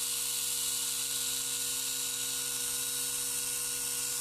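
Tamiya Mini 4WD car's small electric motor and drivetrain running steadily at high speed, an even whine with a strong high hiss.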